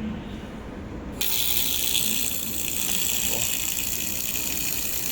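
Handheld laser welder with wire feed running a test weld: a steady hiss from the nozzle starts about a second in and holds, with the wire feed speed set to 80.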